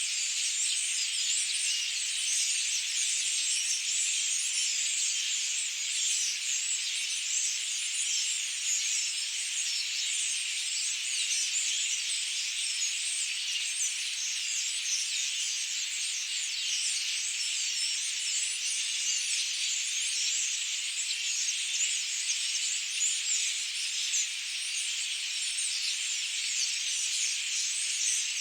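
Forest ambience: a steady, dense high-pitched hiss with a fine flickering texture and no low sounds.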